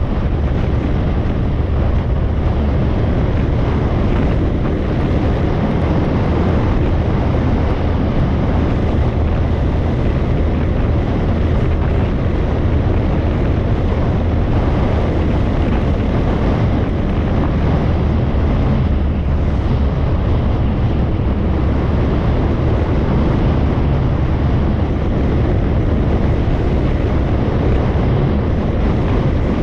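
Steady wind rumble on the microphone over a motorbike running at cruising speed on an open road, with no change in pace.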